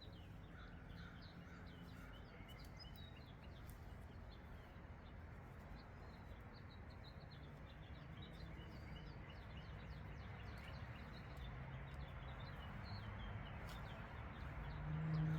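Faint outdoor background noise with small birds chirping throughout. A low hum grows louder near the end.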